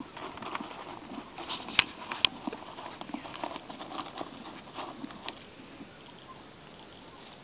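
A horse eating feed from a plastic bucket: irregular crunching and chewing with small clicks, and a few sharp knocks, the loudest two close together about two seconds in. It goes quieter for the last second or so.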